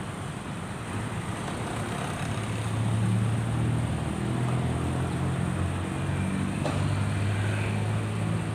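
A motor engine running steadily with a low hum, growing louder about two and a half seconds in.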